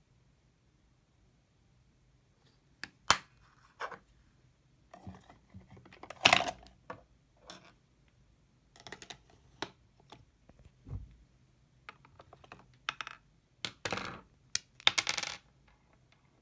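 Plastic makeup packaging handled and set down: an irregular run of sharp clicks and short clatters, with a dull knock midway and the loudest clatters near the end.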